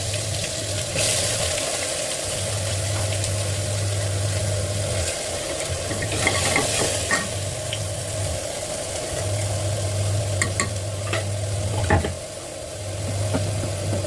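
Food sizzling in a pan while being stirred, with a few sharp clinks and scrapes of utensils, over a low hum that comes and goes.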